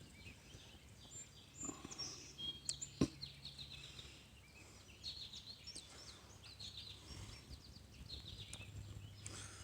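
Faint birdsong: scattered short chirps and trills from small birds, with one sharp click about three seconds in.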